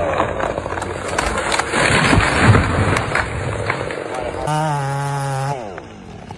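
Dense crackling and snapping of wood, a tree and its branches breaking as they come down. About four and a half seconds in, a chainsaw's small two-stroke engine holds a steady pitch for about a second, then winds down.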